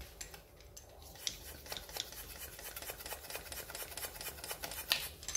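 Fingers rubbing a patch onto a rubber scooter inner tube to seal a puncture, in a quick run of scratchy strokes that begins about a second in and is loudest near the end.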